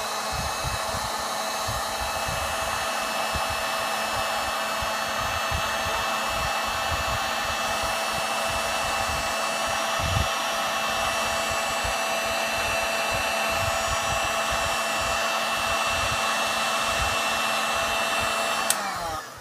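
Electric heat gun running steadily on its first setting, a fan-driven blowing noise with a steady whine. Near the end it is switched off with a click and the fan winds down.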